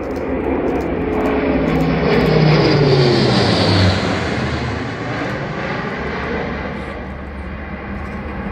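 Airbus A400M's four turboprop engines with eight-bladed propellers passing low overhead: the sound builds to its loudest about three to four seconds in, its propeller hum dropping in pitch as the aircraft goes by, then fades as it flies away.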